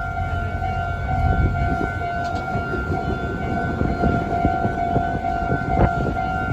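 Japanese railway level crossing warning bell ringing its steady electronic alarm tone, over a heavy low rumble, with a sharp clatter near the end.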